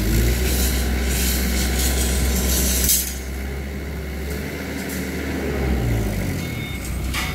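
A truck's engine running with a deep rumble, its pitch rising at the start and dropping again later. A hiss over the first three seconds cuts off sharply.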